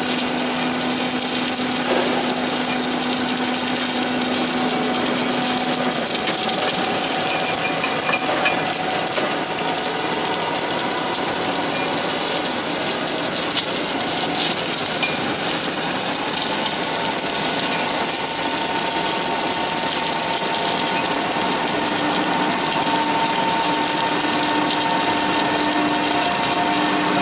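Steady machine noise of an automatic pipe welding station at work: an even hiss with a hum. A low hum stops about six seconds in, and higher steady tones come in later.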